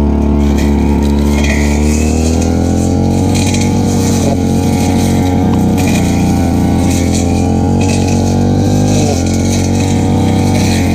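Stihl FR 3001 backpack brush cutter engine running loud and steady at working speed while cutting grass, its pitch sagging briefly twice, about a third of the way in and near the end.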